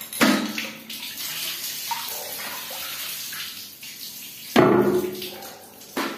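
Water running, with sharp knocks: one just after the start and a louder one about four and a half seconds in.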